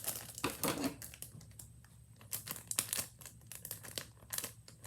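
Packaging crinkling and rustling in irregular crackly bursts as it is handled and pulled open to get at a Tangle fidget toy.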